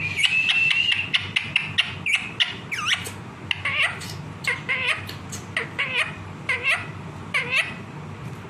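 Pet parrot vocalising: a held high whistle for about the first second, then a run of sharp clicks and short squawking calls that bend downward in pitch, roughly one or two a second.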